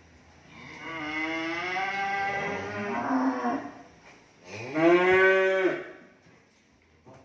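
Cattle mooing: one long moo lasting about three seconds, then a louder, shorter moo about four and a half seconds in that rises and falls in pitch.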